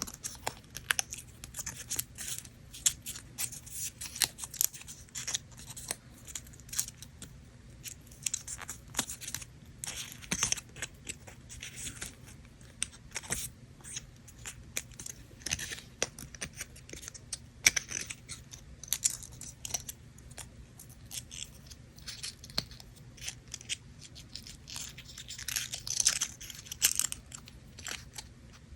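Paper from a miniature craft kit handled close to the microphone: irregular crackling and rustling with quick clicks, growing busier and louder near the end.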